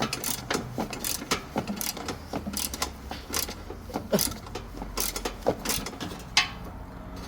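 Ratchet wrench clicking in short, irregular spurts on a headlight mounting bolt, with occasional sharp metal knocks, the loudest about six and a half seconds in.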